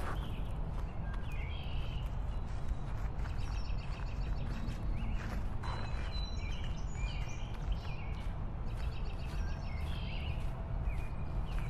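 Birds chirping and calling repeatedly from the trees, with short trills, over a steady low rumble.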